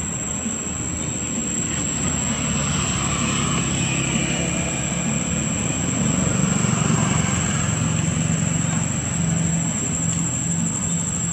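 A low, steady engine hum that grows louder about halfway through, with a constant high thin whine above it.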